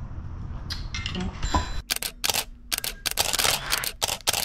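Smartphone camera shutter sound clicking over and over in quick succession as photos are snapped, with a few fainter clicks before the run starts about two seconds in.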